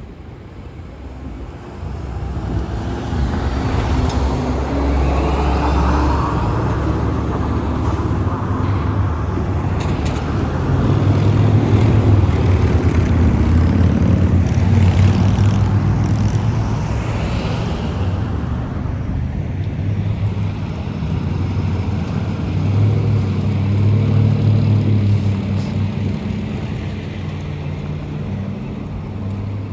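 Road traffic passing, led by a heavy engine, likely a transit bus, whose hum grows louder about two seconds in, peaks midway with its pitch rising and falling, then eases off.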